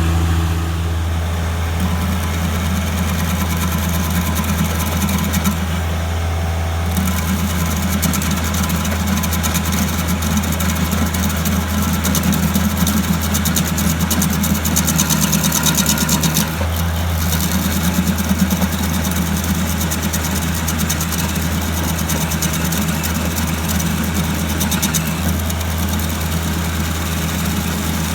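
Engine running steadily under light load, its note shifting slightly a little past halfway and again near the end.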